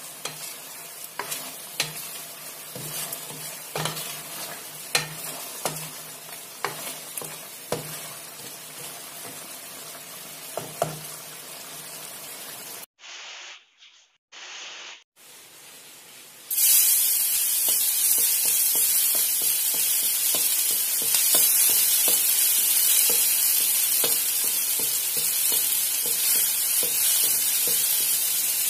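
Chicken stir fry sizzling in a wok while a spatula stirs it, scraping and tapping against the metal many times. After a brief break about halfway through, minced garlic sizzles loudly and steadily in hot oil in the wok.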